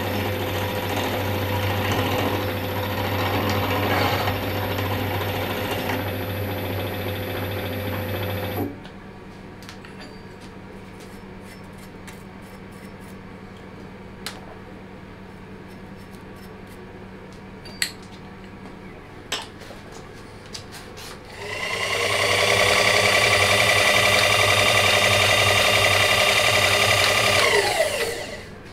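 A workshop machine motor runs steadily and cuts off suddenly about a third of the way in. A few sharp clicks and knocks follow. Then a power-tool motor starts with a high whine about 21 seconds in, runs for some six seconds, and winds down, falling in pitch.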